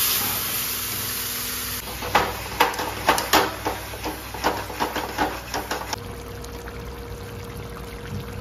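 Marinated chicken sizzling in a hot kadai, then a metal spatula scraping and knocking against the pan about two or three times a second as the pieces are turned. The sound drops suddenly about six seconds in to a quieter, steady cooking hiss.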